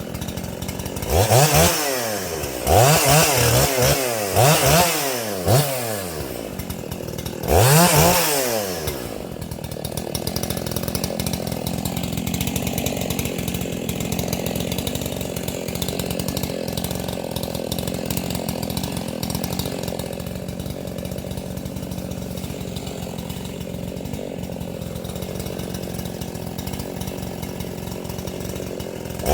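An 80cc Makita EA7900P (Dolmar 7900) two-stroke chainsaw revved up hard five times in quick succession, then settling to a steady idle for the last twenty seconds or so.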